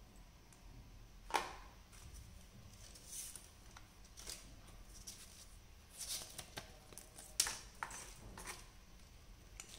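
Cardboard packaging and a paper leaflet being handled: scattered soft rustles and light clicks, the sharpest about a second in and again about seven seconds in.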